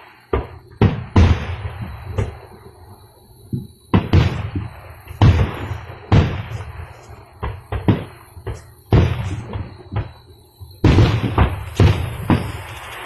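Sharp explosive bangs, more than a dozen at irregular intervals, each trailing off in an echoing rumble. They sound like fireworks or gunshots, and the uploader cannot tell which.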